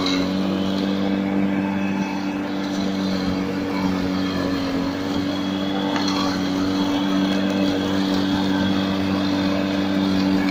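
Old Lasta electric rotary lawn mower running while cutting grass, its motor giving a steady hum.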